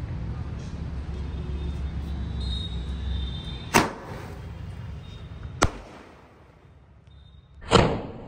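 Coronation 'Panch Avatar' sky-shot firework firing three shots upward, about two seconds apart, each a short sharp blast; the first and last ring on a little longer.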